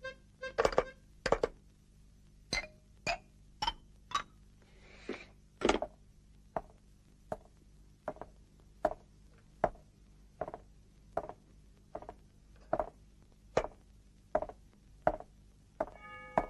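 Stylised cartoon footstep effects: a series of sharp knocks, each with a brief clinking ring. They come unevenly for the first few seconds, then settle into an even walking pace of a little more than one a second.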